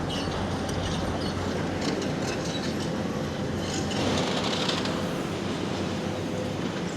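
Demolition machine pulling rubble down from a building: a steady rumble with scraping and clattering of falling debris, a little louder about four seconds in.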